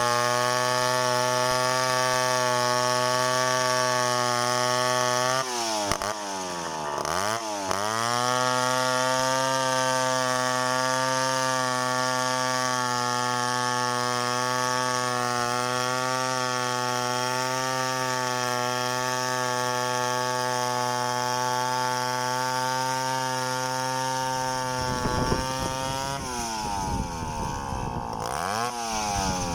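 Two-stroke chainsaw running at high revs, cutting into a coconut palm trunk. Its note drops sharply and climbs back twice, about six seconds in and again near the end.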